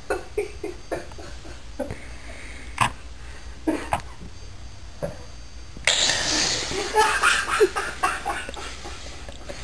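Stifled laughter from onlookers that breaks out suddenly into a burst of breathy laughing about six seconds in. Before that there are short, scattered snort-like sounds.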